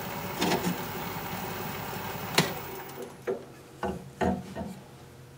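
Wood lathe running with no cut being made, then winding down and stopping about three seconds in. A sharp click and a few short knocks come as the tool and the burl bowl are handled.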